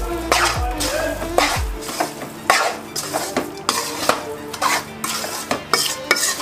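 Metal spatula stirring and scraping roasting wheat flour and ghee around a steel kadhai, a scrape about two or three times a second.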